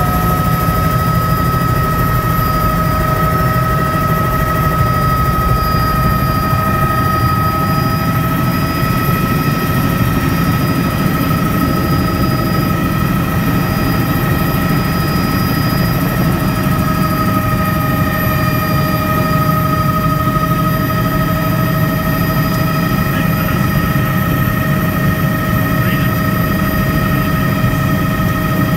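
Bell 206 Jet Ranger helicopter heard from inside the cabin as it lifts off and climbs away: a steady, loud drone of Allison 250 turboshaft and rotor, with a high turbine whine over a deep low rumble.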